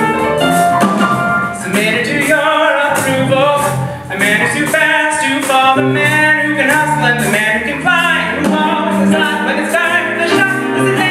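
Live song with band accompaniment: piano and instruments over a steady beat, and a male lead singer coming in about two seconds in.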